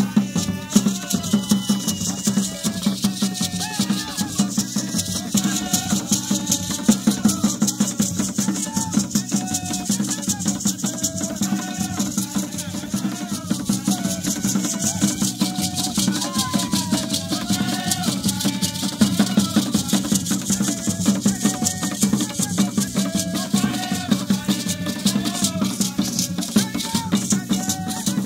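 An ensemble of hand drums playing a fast, steady dance rhythm, with shakers rattling over it.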